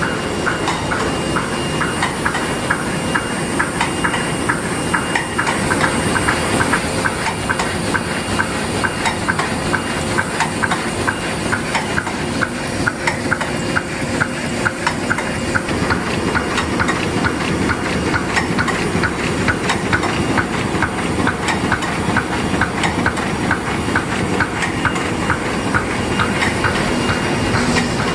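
Sheet-fed offset printing press running: a steady mechanical din with a fast, even clacking from its moving parts.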